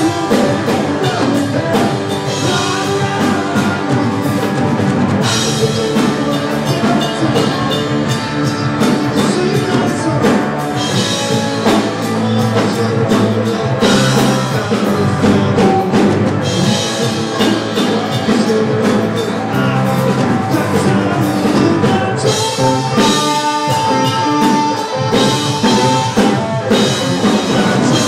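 Live rock band playing an instrumental passage on electric guitar, electric bass and drum kit, with a steady drum beat under the guitars. A sustained guitar note is held for a few seconds near the end.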